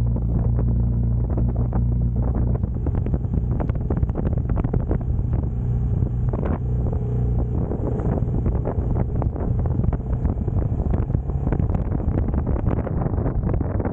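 Benelli Imperiale 400's single-cylinder engine running while under way, with heavy wind buffeting on the microphone. The engine's steady note is clearest at first. After about three seconds the wind buffeting takes over.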